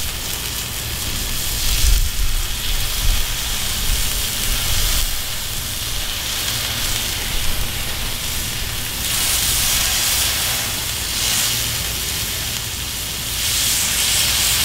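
Ground beef patties sizzling in olive oil on a hot Cuisinart 360 griddle: a steady frying hiss that grows louder near the end as the patties are pressed flat with a spatula.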